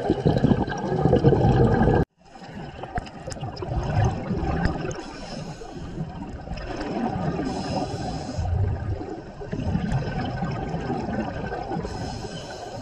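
Scuba diver breathing through a regulator underwater, exhaled bubbles gurgling and rushing past the camera housing in repeated surges. The sound drops out for an instant about two seconds in.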